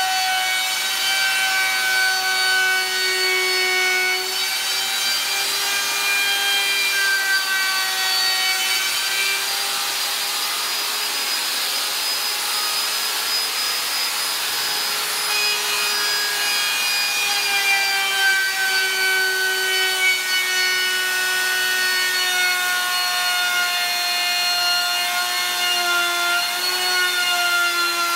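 DeWalt router running at speed, its bit cutting into a high-density polyethylene board as it is fed along. A steady high whine whose pitch wavers slightly as the load on the bit changes.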